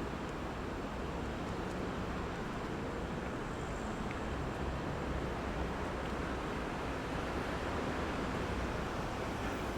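Steady road traffic noise from vehicles circulating at a city roundabout: an even hiss and low rumble of tyres and engines, with no single vehicle standing out.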